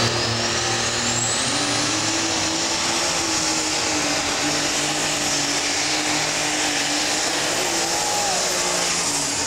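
Unlimited super stock pulling tractor at full throttle, dragging the weight-transfer sled. The engine runs loud and steady, with a high whine that climbs over the first two seconds and then holds, typical of its turbochargers spooling up under load.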